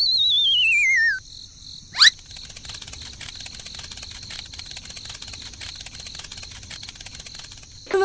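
Cartoon sound effects: a wobbling whistle sliding down in pitch for about a second, then a quick rising swoosh about two seconds in, then a steady fast chirping of crickets.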